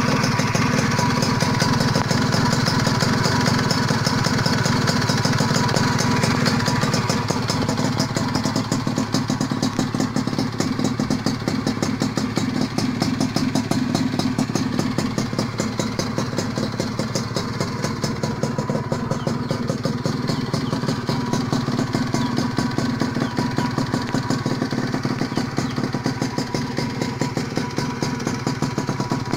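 Suzuki Tornado GS single-cylinder two-stroke motorcycle engine, fitted with an unlimiter CDI, running steadily on the stand. It is a little higher for the first seven seconds or so, then settles to a steady lower run.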